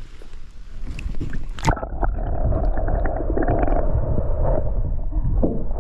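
Boat motor running with the boat under way, with wind and water rush. A single sharp knock comes just before two seconds in, after which the motor noise is louder and steadier.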